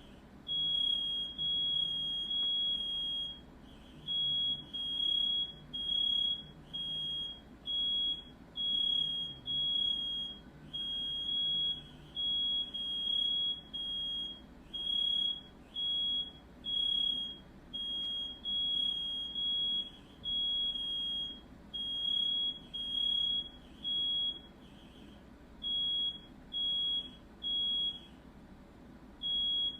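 Smoke alarm going off, one shrill high-pitched beep repeating about once a second without let-up, set off by firework smoke.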